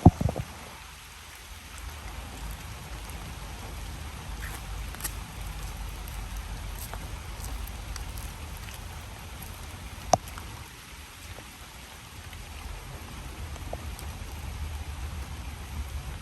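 Heavy rain falling steadily, an even hiss with scattered drop ticks, and one sharp click about ten seconds in.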